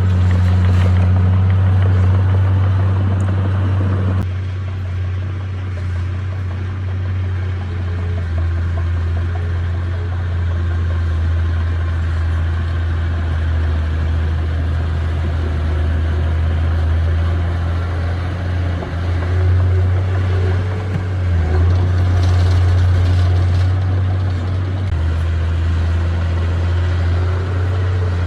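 Heavy diesel engine of a bulldozer running steadily, with a deep low drone. The sound thins out about four seconds in and grows louder again around twenty seconds in.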